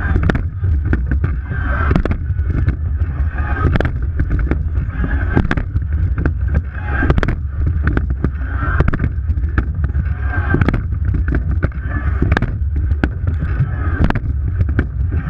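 Racing rowing eight under way: a steady low rush of water and wind on the microphone, with a sharp knock from the oars and boat at each stroke, about one every one and a half to two seconds.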